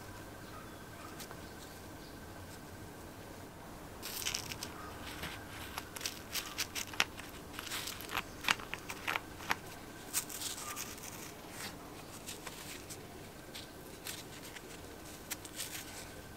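Small metal clicks and scrapes as a nut and tab washer are worked off the rusty shaft of a vintage manual chain hoist. The clicks start about four seconds in and cluster through the middle, over a faint steady hum.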